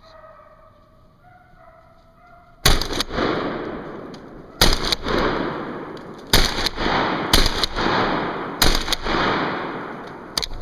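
Six shotgun shots fired in quick, irregular succession about two seconds into the clip, each echoing and dying away over a second or more. Just before the first shot, faint animal calls rise and fall in pitch.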